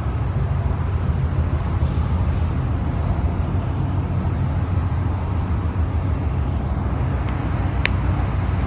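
Inside an MTR East Rail line R-Train electric multiple unit running between stations: a steady low rumble of wheels on rails and running gear, with one brief sharp click near the end.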